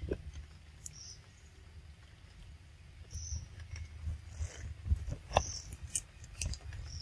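Forest ambience: short high chirps from a small bird or insect, repeating every second or two, over a low rumble. Scattered sharp clicks and rustles come thickest near the end.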